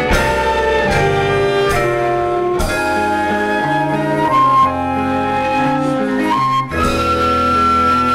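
Live band music: a jazzy song with held melody notes over bass and drums, broken by a short pause about six and a half seconds in.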